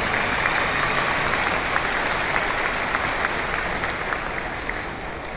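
A large audience applauding, the clapping slowly dying away toward the end.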